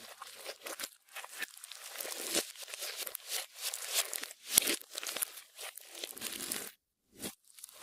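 Clear slime being squished and stretched by hand, with irregular crackling and popping and a brief pause about two-thirds of the way through.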